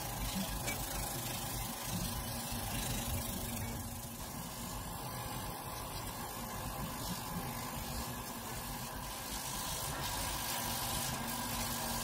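Laser cutting machine running while it cuts a wood veneer panel: a steady mechanical hum with hiss.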